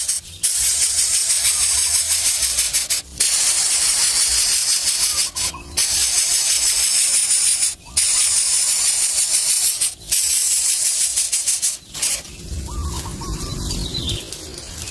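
Loud, steady high-pitched hiss, cut off by short gaps several times, then a few short bird chirps near the end.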